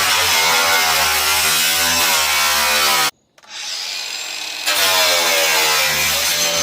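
A handheld power tool cutting thin sheet metal. The motor's hum wavers in pitch under load. It stops abruptly about three seconds in, restarts a moment later, and comes back up to full level about a second and a half after that.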